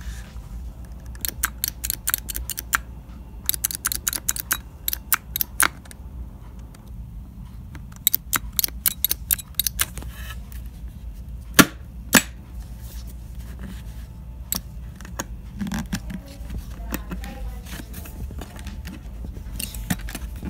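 Quick runs of sharp plastic clicks from a motorcycle helmet's visor and vents being worked by hand, with two louder single clicks about halfway through.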